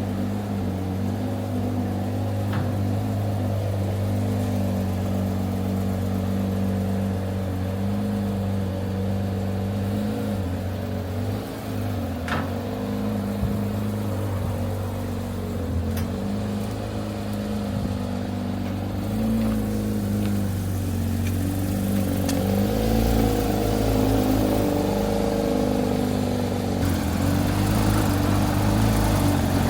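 A Porsche 911 GT3 RS's naturally aspirated 4.0-litre flat-six engine running under way at freeway speed, with road rumble underneath. It grows louder from about two thirds in as the throttle opens.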